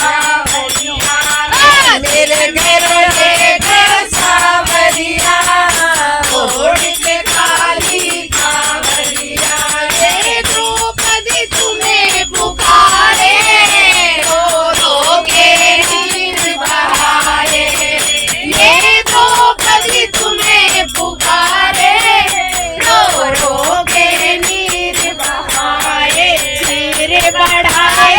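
A group of women singing a Hindi devotional bhajan together, with a shaken rattle-like percussion keeping the beat.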